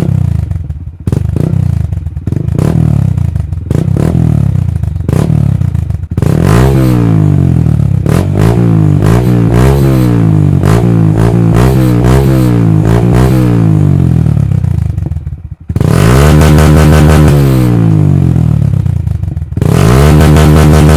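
Honda MSX125 (Grom) single-cylinder four-stroke engine revved in place through a TYGA full stainless race exhaust with carbon can: short low blips at first, then about six seconds in the revs rise and fall quickly over and over, then two longer high-rev holds near the end. A light rattle from a vibrating part comes through under the revs.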